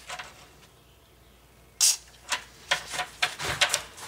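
A short hiss of Tri-Flow aerosol lubricant sprayed through its straw into a sticking door latch, about two seconds in. It is followed by a run of light metallic clicks and a soft thump as the latch hardware is handled and wiped.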